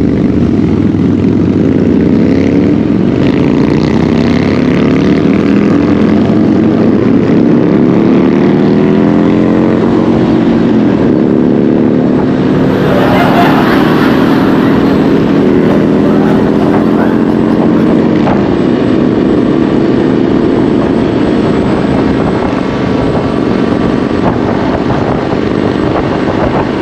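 Motorcycle engines running at road speed, their pitch drifting up and down with the throttle, over a steady rush of noise. About halfway through, a louder hiss rises for several seconds and then fades.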